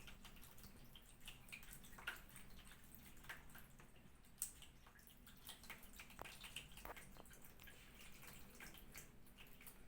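Faint, irregular water drips and small splashes in a small room, with a sharper drip about four seconds in.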